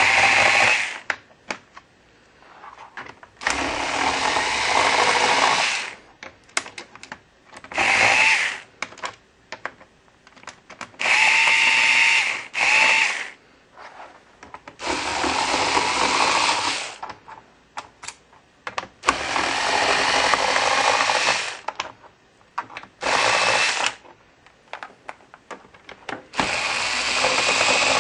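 Homemade electric screwdriver built from a Roomba robot vacuum's drive motor, spinning in about eight short bursts of one to three seconds as it backs screws out of a laptop's bottom panel. Small clicks come between the bursts.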